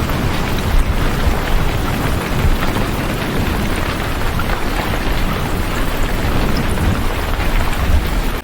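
Heavy rain falling steadily, a dense even hiss with a deep low rumble underneath.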